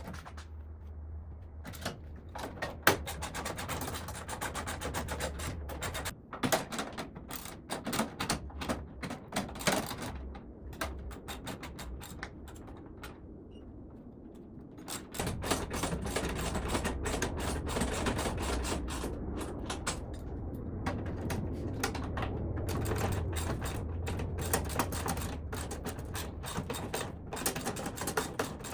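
Sheet-metal tool cart parts being handled and fastened: a long run of quick clicks and clattering, over a steady low hum.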